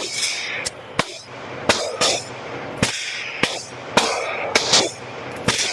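Pistol shots at a shooting range: about ten sharp reports at irregular intervals. Some are louder with a short echoing tail and some are thinner and fainter, as from several shooters firing at once.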